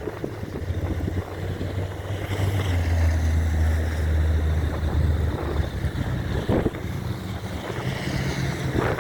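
Storm wind buffeting the microphone, a low rumble that is heaviest for the first five seconds or so and then eases.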